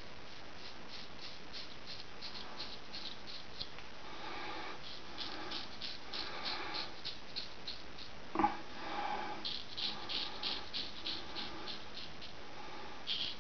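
Gold Dollar 66 straight razor scraping through lathered stubble in quick short strokes, a crisp rasp about three or four times a second. A single sharper knock about eight seconds in.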